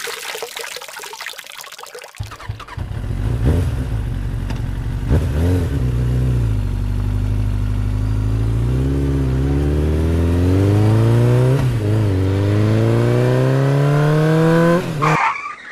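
Engine revving sound effect: an engine note starts about two seconds in, climbs steadily in pitch over several seconds with a few brief dips, and cuts off suddenly near the end. The first two seconds hold a hiss instead.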